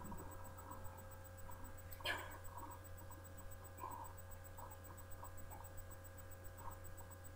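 Steady low electrical hum with a few faint small sounds, and one short sharp click about two seconds in.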